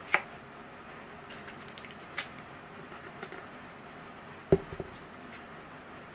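Light clicks and taps of a playing card box and a drink cup being handled, with one sharper knock about four and a half seconds in as the cup is put down on a hard surface.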